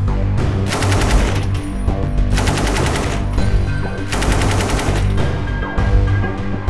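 Three short bursts of automatic fire from a SAR 762 MT 7.62 mm machine gun, each under a second of rapid shots, heard over background music.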